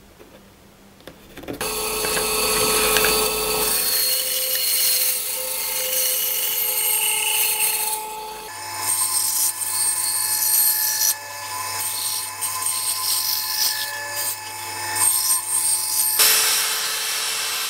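Band saw running, its blade cutting a rounded corner into a glued-up hardwood cutting board. The saw starts about a second and a half in, and the sound changes abruptly about eight seconds in and again near the end.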